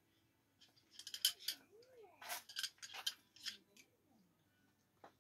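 Metal screwdrivers clinking and rattling against each other as a handful is picked up and handled: a quick run of sharp clicks over about three seconds, then one more click near the end.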